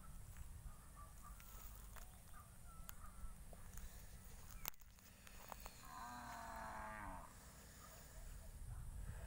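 A farm animal gives one drawn-out call, like a cow's moo, about six seconds in, lasting just over a second. Faint scattered clicks and a low rumble sit under it.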